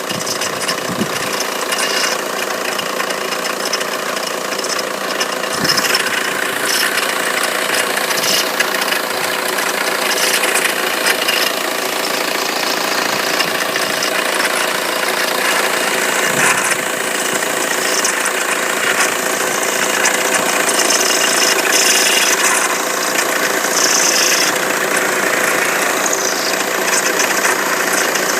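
Renault Mégane Scénic TDI diesel engine running steadily, with a strange noise from the accessory belt drive that a mechanic suspects comes from the water pump.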